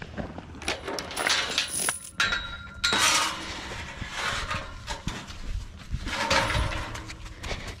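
Metal gate chain clinking as it is unhooked from a fence post, then a steel pipe paddock gate clanking and rattling as it is handled, with brief metallic ringing about two seconds in.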